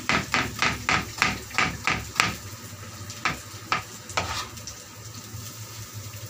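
Long-handled metal spatula scraping and knocking against a steel wok in quick strokes, about three a second, as sliced onions fry in oil. The strokes thin out after about two seconds and stop about four seconds in, leaving a steady low background with the frying.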